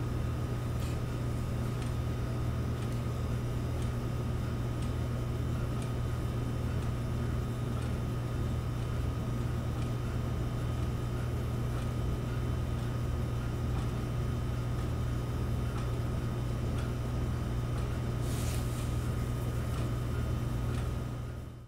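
Steady low hum with a faint high whine above it, running without a break and dying away at the very end.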